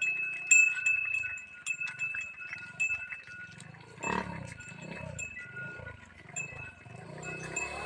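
Bells hanging from the necks of Thari (Tharparkar) cattle ringing unevenly as the herd walks, with a deep lowing call from one of the cattle about four seconds in.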